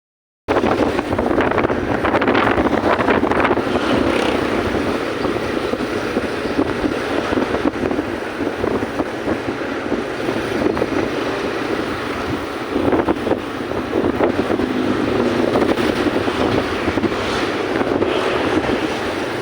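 Steady rumble of wind buffeting the microphone, with a vehicle running underneath.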